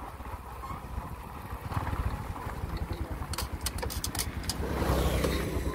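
Motorbike running while being ridden over a rough dirt road, a steady low rumble that rises and falls, with a quick run of sharp clicks about three to four seconds in.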